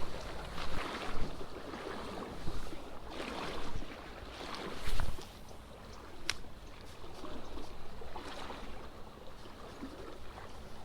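Flowing creek water with wind rumbling on the microphone, broken by a few thumps, the loudest about five seconds in, and one sharp click a little after six seconds.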